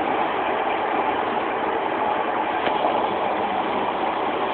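Steady running noise heard inside the passenger saloon of a Class 156 Super Sprinter diesel multiple unit: its underfloor Cummins diesel engine and running gear, an even rumble and hiss.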